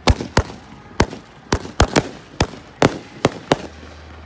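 Aerial fireworks bursting overhead: about ten sharp bangs at uneven intervals, two or three a second.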